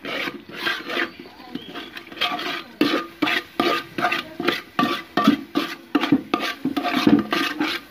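Spatula stirring and scraping rice flour around a metal pot, in quick repeated strokes of about three a second.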